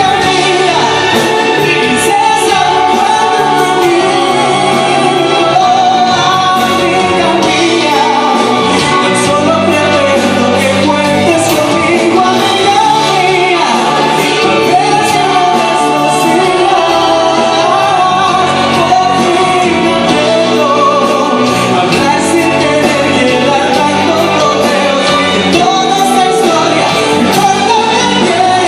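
A male singer with a full symphony orchestra performing a Spanish pop ballad live, the voice carried over strings and band.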